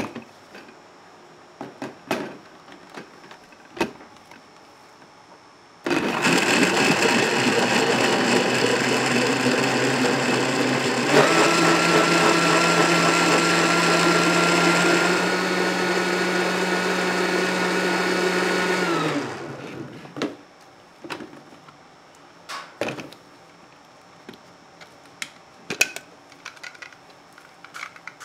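Electric motor of a blending or grinding machine switched on suddenly and running loud and steady, its whine shifting partway through, then spinning down with falling pitch. Light clicks and knocks of handling come before and after it.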